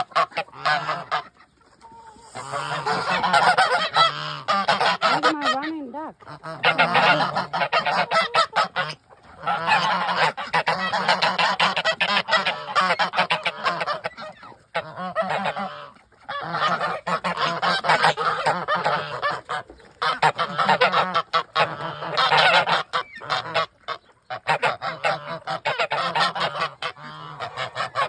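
A backyard flock of poultry calling loudly together, a dense clamour of honks and squawks in bursts of several seconds with brief lulls between them.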